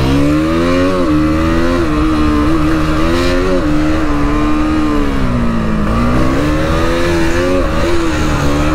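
KTM Duke's single-cylinder engine pulling under throttle while riding. The revs climb in the first second, hold fairly steady, ease off about five to six seconds in, then climb again.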